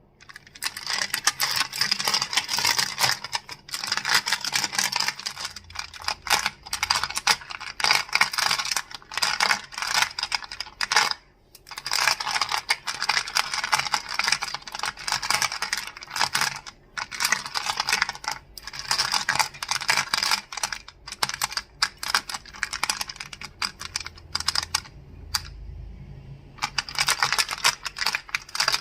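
Crystals clicking and clacking in fast, dense runs of sharp little clicks, broken by a few brief pauses.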